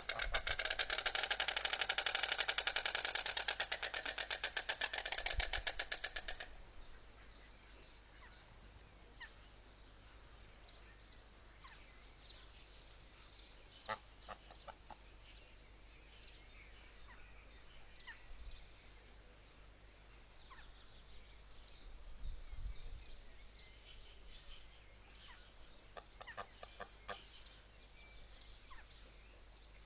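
White stork bill-clattering: a loud, rapid rattle of the bill snapping open and shut, lasting about six seconds before it stops. After that only faint, scattered clicks remain.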